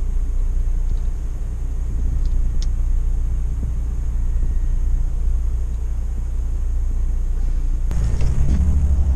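Idling vehicle engine: a steady low rumble, with a click and a change in its note about eight seconds in.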